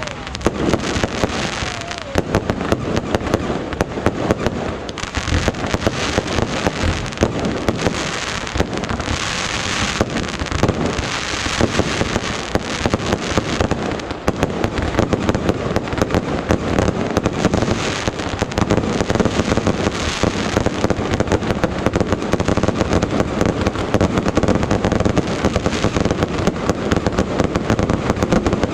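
Yanshui beehive rockets, massed bottle rockets fired from a rocket fortress, going off in a dense, unbroken barrage of rapid cracks and bangs.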